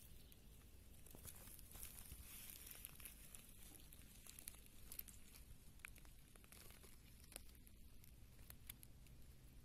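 Near silence: a faint steady hiss and hum with a few faint scattered ticks and rustles.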